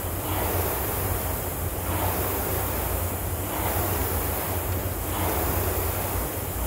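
Air rowing machine's fan flywheel whooshing in rhythmic surges, one with each hard stroke, about one every 1.7 seconds, over a steady low drone.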